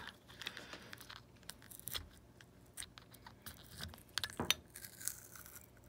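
Small screwdriver prying and scraping inside the plastic shell of an i11 TWS earbud charging case: scattered faint clicks and scrapes of metal on plastic, with a sharper click about four and a half seconds in.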